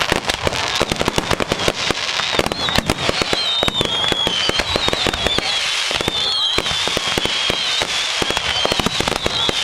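Fireworks display: a dense, continuous crackle of small bangs and pops, with high wavering whistles from whistling fireworks starting about two seconds in.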